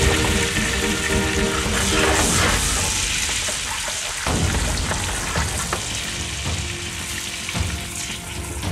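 Chopped tomatoes sizzling as they fry in bubbling hot fat in a frying pan, with a few light clicks of metal tongs moving them in the second half.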